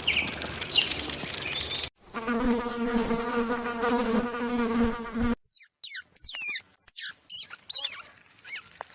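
A flying insect's steady wing buzz lasting about three seconds, set between other animal recordings: a noisy hiss before it and a run of quick, high, downward-sweeping chirps or squeaks after it.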